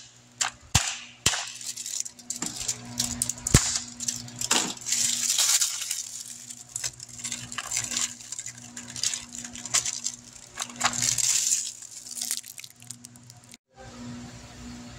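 Clicks and crinkling of a clear plastic clamshell package being opened and handled, with new engine lifters clinking inside it. A low steady hum runs underneath.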